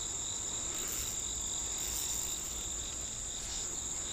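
Insect chorus trilling steadily, a continuous high-pitched drone at two steady pitches.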